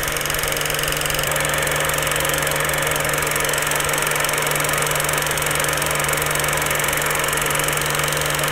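Old film projector sound effect: a steady mechanical whirr with a constant low hum, laid under a film-countdown leader.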